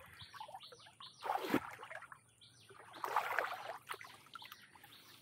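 Water sloshing in a shallow stream: two swishes about two seconds apart, the first about a second in.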